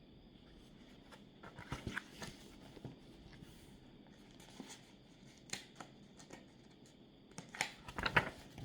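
Soft rustling and a few light clicks of handling, in short spells, the loudest near the end.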